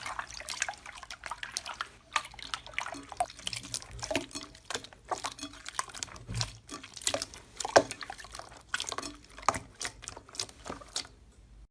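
Slime worked by hand, giving a quick, irregular run of wet clicks and pops that stops shortly before the end.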